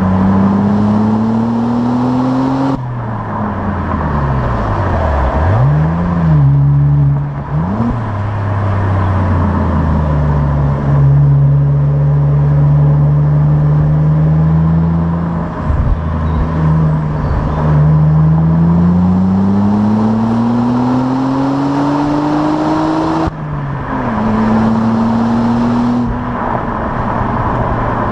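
Opel Insignia OPC's turbocharged 2.8-litre V6 with stock exhaust, driving. The engine note climbs under acceleration, drops sharply at a gear change near the start and again about 23 seconds in, dips and wavers around 5 to 8 seconds in, and holds steady while cruising in between.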